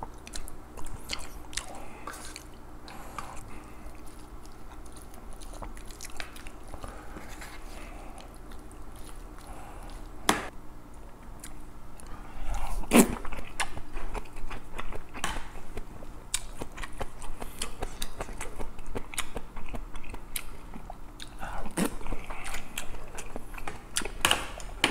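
Wooden spoon mixing rice with kimchi stew in a metal lunch box: scattered light scraping and clicks, with a couple of sharp knocks. From about halfway, a mouthful of the mixed rice is chewed close to the microphone.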